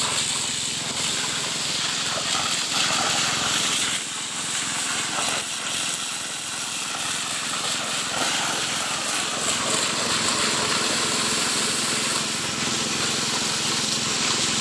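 Small Robin single-cylinder petrol engine running steadily, driving a suction pump for gold mining, with a broad rushing hiss over it.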